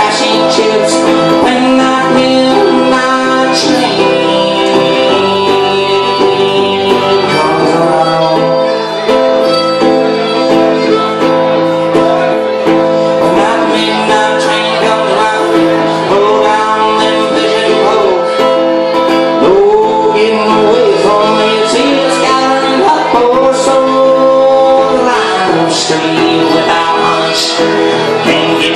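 Live folk song from a two-piece band: a man singing over a strummed amplified electric guitar, with a fiddle playing along.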